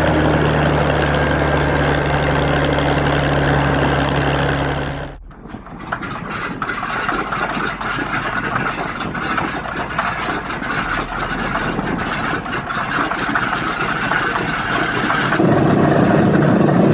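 Aircraft piston engine running steadily, then an abrupt cut about five seconds in to another aircraft engine running with a dense crackle, which grows louder near the end.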